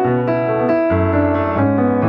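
Background music: piano or electric piano playing sustained chords with a moving bass line.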